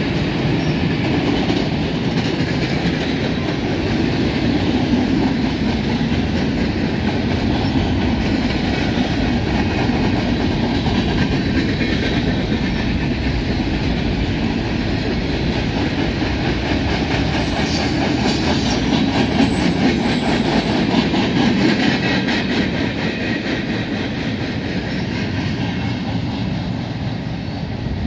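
Freight cars of a long mixed CSX train rolling past: a steady rumble of steel wheels on rail with clickety-clack over the rail joints. A few thin high wheel squeals come through a little past the middle, and the sound fades over the last few seconds as the last cars pull away.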